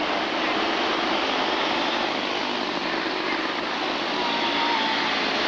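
Quarter midget race cars' small single-cylinder engines buzzing together as the pack runs around the dirt oval. One car passes close about four seconds in, its engine note rising slightly as it goes by.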